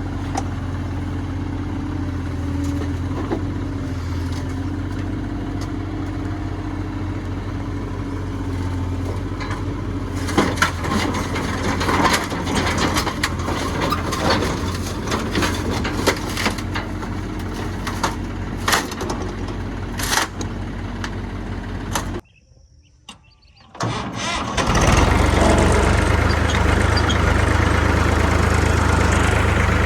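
Kubota U30 mini excavator's diesel engine running steadily, with a string of sharp clanks and knocks as the machine works. The sound drops out for about two seconds past the middle, then the engine comes back louder.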